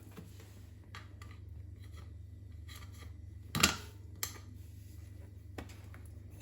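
New bicycle tyre being worked onto the wheel rim by hand: a few light clicks and one louder snap about three and a half seconds in, over a low steady hum.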